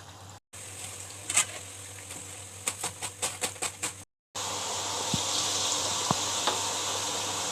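Hot oil sizzling as urad dal vadas deep-fry. A quick run of sharp ticks comes a little before the middle, and the sizzle becomes louder and denser for the last few seconds. The sound cuts out abruptly twice.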